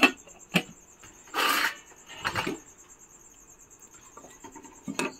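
Steel ladle clinking and scraping against a frying pan while scooping chicken curry out: a couple of sharp knocks at the start, two short scraping rubs in the middle, and another clink near the end.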